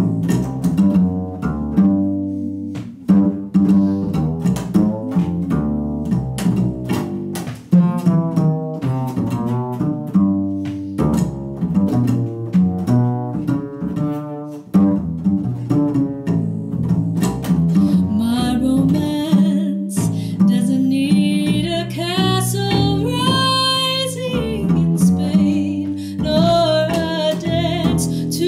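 Upright double bass played pizzicato, a run of plucked notes on its own. About eighteen seconds in, a woman's singing voice comes back in over the bass.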